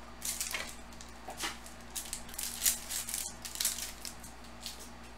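A foil trading-card pack being torn open and the cards pulled out: a run of crinkling, rustling bursts of wrapper and card handling, loudest a little past the middle.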